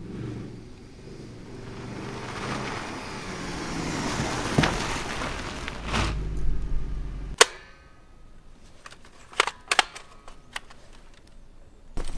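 Mercedes C63 AMG coupe's V8 engine running as the car drives up, growing louder, then a deep low rumble that stops abruptly with a sharp crack about seven seconds in. A few sharp clicks and knocks follow.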